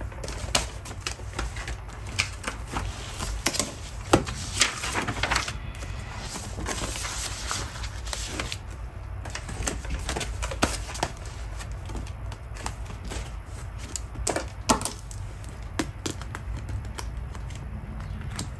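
Keyboard typing: irregular clicks and taps, with a steady low hum beneath.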